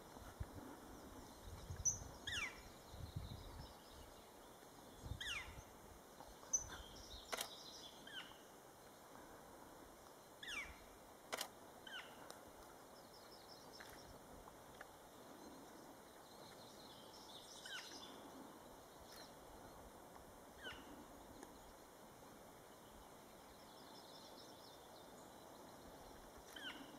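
Faint bird calls outdoors: short whistled notes that fall in pitch, repeated every few seconds, with a couple of sharp clicks between them.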